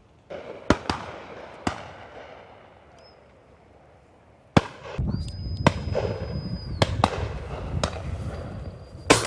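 Shotguns firing at driven birds: around nine shots, some near and some farther off, each cracking and echoing, with a quick pair about a second in. From about halfway, wind rumbles on the microphone, and a steady high whistle sounds for about two seconds.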